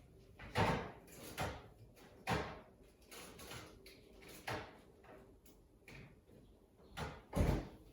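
A series of short knocks and clunks from kitchen items being handled and set down, about six over several seconds, the loudest about half a second in and again near the end.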